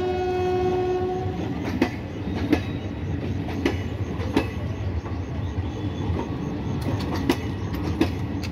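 Indian Railways passenger coaches rolling past close by: a steady rumble with the wheels clacking over rail joints, often in quick pairs. A train horn held at one pitch cuts off about a second and a half in.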